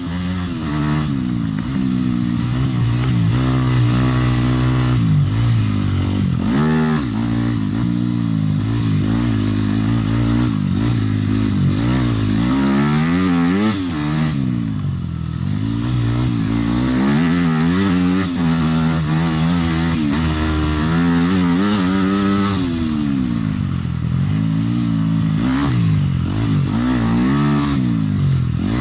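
Yamaha YZ250FX four-stroke single-cylinder dirt bike engine under way on a trail, revving up and down over and over as the throttle is opened and rolled off.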